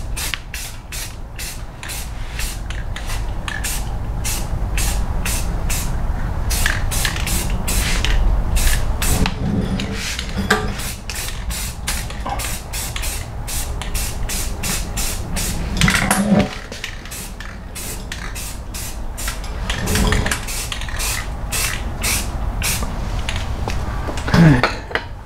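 Rust-Oleum rust-converting spray paint hissing from an aerosol can in many short bursts, a few a second, as a coat goes onto a rusty metal bracket.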